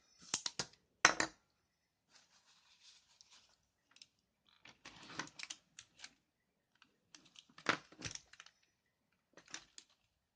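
Irregular bursts of sharp clicking and rattling, with a short stretch of scraping, from a disassembled mechanical keyboard and small tools being handled.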